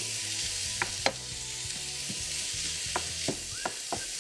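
Ground chicken and diced peppers sizzling in a hot frying pan while a wooden spatula stirs them, with several light knocks of the spatula against the pan.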